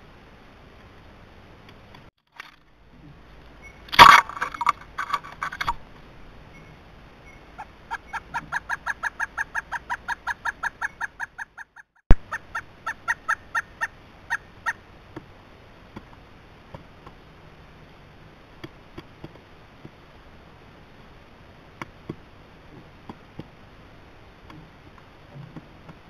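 Pileated woodpecker calling: a loud first call, then a long even run of about five notes a second, with a few more notes after a sharp click. Faint scattered taps follow.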